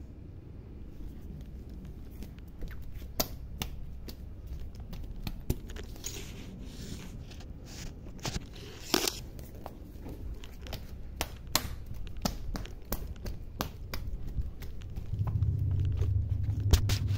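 Handling noise from a phone's microphone as the phone is moved about: rubbing and scattered sharp clicks and knocks over a low rumble. About fifteen seconds in, a louder low rumble comes in.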